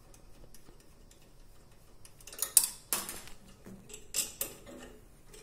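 Small metal and plastic parts of a Dhona single-pan balance clicking and clinking as its transport locks and supports are taken off by hand. The few sharp clicks start about halfway through, the loudest near the middle.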